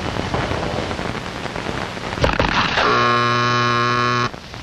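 A timing buzzer on a pistol range sounds one steady, low buzzing tone for about a second and a half and cuts off sharply, the signal that times a close-combat shooting run. Just before it, a couple of sharp cracks over a steady hiss.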